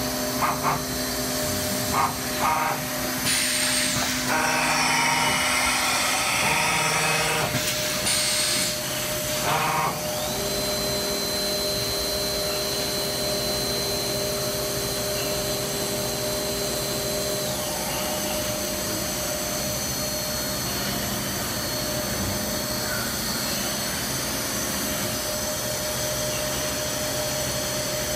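Milltronics RH-20 CNC vertical mill running with a steady machine hum. Two short loud rushes of noise come in the first ten seconds as a tool is changed, then the spindle whines at one steady pitch for about seven seconds and stops.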